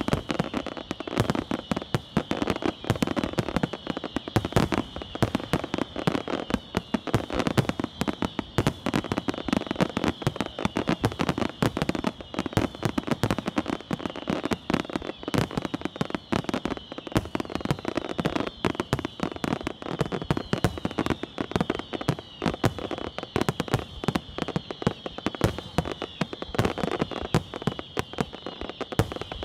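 Aerial fireworks shells of a castillo display bursting in a dense, unbroken barrage: many sharp reports a second with crackle, over a steady high-pitched sizzle.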